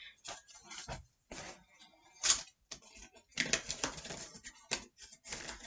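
Small collectible blind pack's wrapper being crinkled and torn open by hand: irregular rustles and crackles, with one louder crackle about two seconds in.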